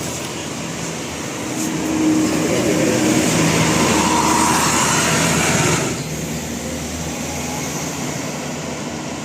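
Road traffic: a vehicle passes close by, its engine and tyre noise swelling for about four seconds and then cutting off suddenly.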